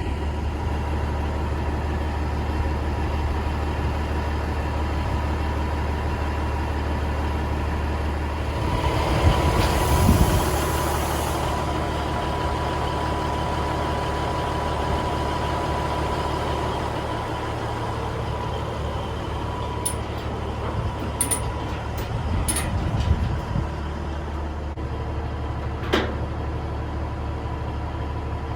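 Semi truck's diesel engine running steadily, with a loud burst of hissing about nine seconds in and a few sharp clicks near the end.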